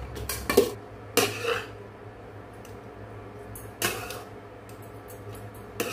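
A metal spoon scraping and clinking against an aluminium kadai as cooked rice is stirred and turned, in about five separate strokes with pauses between.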